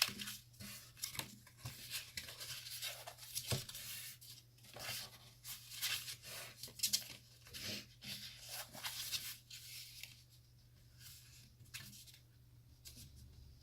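Heavy cardstock being folded and creased along its score lines by hand: a run of short paper rustles and crackles that thins out after about ten seconds.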